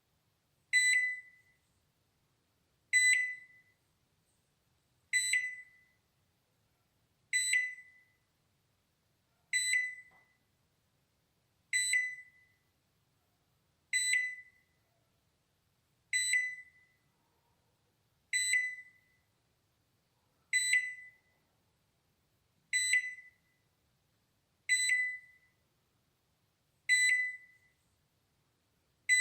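Balay microwave oven's alarm beeper sounding single short high beeps, one about every two seconds, each beep fading away quickly.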